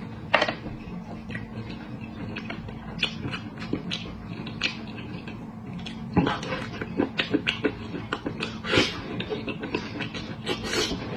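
Close-up eating sounds: meat being torn off a spiced sheep's head by hand, then bitten and chewed, with many short clicks of chewing and lip smacking that come thicker from about six seconds in. A steady low hum runs underneath.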